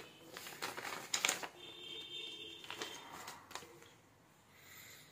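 Paper rustling as a folded instruction booklet is handled and turned over, in several short rustles.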